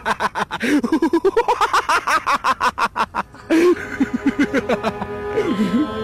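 A man laughing loudly in rapid bursts for about three seconds, then a sudden loud cry. After that, music with long held notes comes in.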